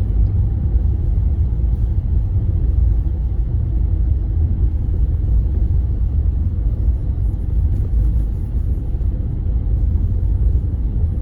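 Car heard from inside the cabin while driving slowly on snow: a low, steady rumble with no sudden events.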